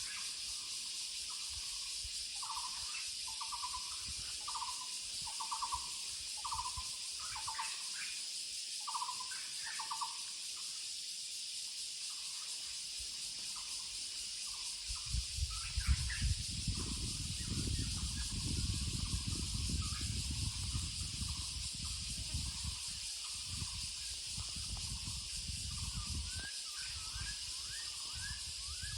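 Muller's barbet calling: a long series of short notes at one pitch, repeated about every two-thirds of a second, plainest in the first ten seconds and fainter after. A steady high insect hiss runs beneath, and a low rumble comes in about halfway through for some ten seconds.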